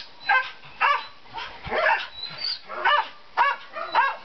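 Newfoundland dog giving repeated short, high-pitched yelping barks, about one every half second.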